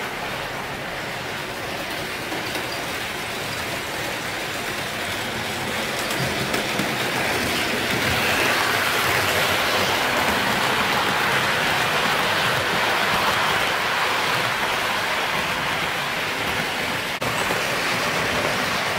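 HO-scale model train, a C57 steam locomotive hauling passenger coaches, rolling over the track: a steady rushing clatter of small metal wheels on rail that grows louder about six seconds in as the coaches pass close. The sound drops out for an instant near the end.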